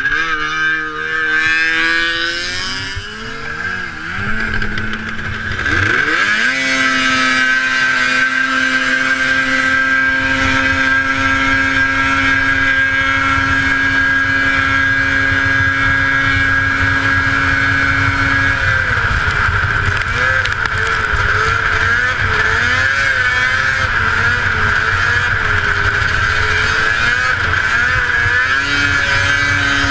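1981 Arctic Cat El Tigre 6000 snowmobile's 500cc two-stroke engine at a race start. It revs up and falls back in the first few seconds, then climbs sharply about six seconds in and holds a high, steady pitch at full throttle. Past the middle the pitch wavers up and down for several seconds before steadying again.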